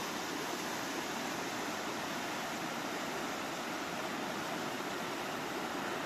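Steady rush of water from a shallow, rocky mountain stream: an even hiss with no distinct splashes or other events.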